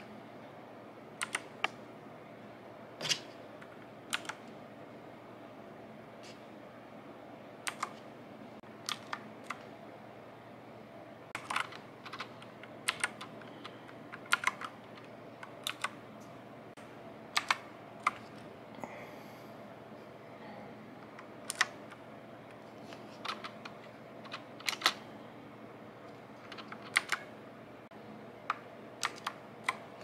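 Clicky blue switches of an Uhuru UMK-100 compact mechanical keyboard, keys pressed one at a time or in quick pairs with pauses of up to a couple of seconds between, as when cycling through the backlight modes.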